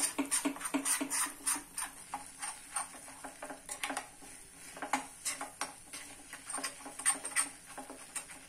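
A metal spoon stirring and scraping a thick green garlic and chilli paste in a small steel pan as it cooks in butter: irregular light metal-on-metal clicks and scrapes, two or three a second.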